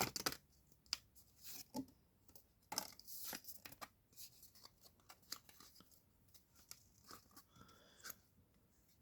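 Faint, intermittent rustling and scraping as a foil Pokémon booster pack and its cards are handled, with a sharper tearing sound just after the start and short scrapes and taps after that.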